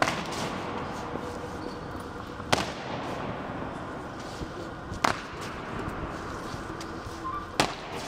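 Soldiers' boots stamping on a stone floor in a slow ceremonial goose step: four sharp stamps about two and a half seconds apart.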